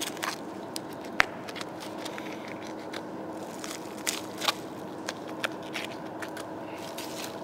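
Knife cutting the picanha (rump cap) off a hanging beef hindquarter, the fat cap and membrane crackling and snapping irregularly as they are sliced and pulled away. A steady hum runs underneath.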